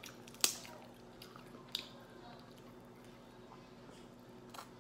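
Cooked crab shell cracked and picked apart by hand: one sharp crack about half a second in, and a softer one over a second later.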